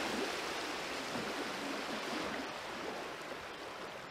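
Steady rush of running water, slowly fading towards the end.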